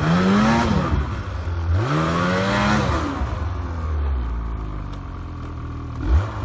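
Snowmobile engine revved hard twice, its pitch sweeping up and falling back, then running lower and blipped sharply once more near the end. The sled is stuck in deep snow, and the throttle is being worked to drive it out while helpers lift.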